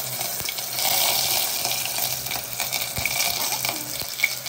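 Sliced onions sizzling and crackling as they go into hot oil in a pressure cooker, a steady frying hiss.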